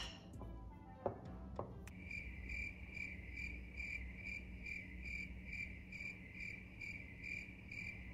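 Cricket chirping, used as a comic sound effect: an even run of high chirps, about two to three a second, that starts abruptly about two seconds in. Before it come a few light clicks of a fork against a glass mixing bowl.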